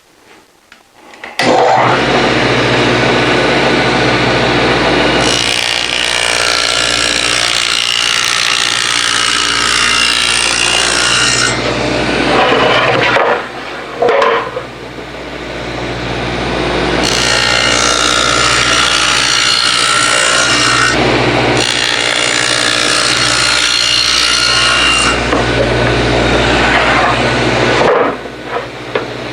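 Table saw with a 1/4-inch dado blade stack running and cutting a dado into plywood panels, the motor humming under the louder cutting noise of each pass. The sound dips briefly in the middle and builds again for further passes.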